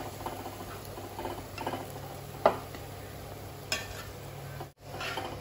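A metal ladle scraping and clinking against a steel pot as thick curry is served, in short strokes with one sharp clink about two and a half seconds in, over a steady low hum.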